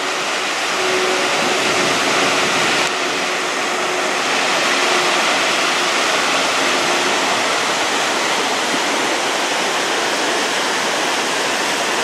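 Loud, steady rush of a mountain waterfall pouring down a steep rock face.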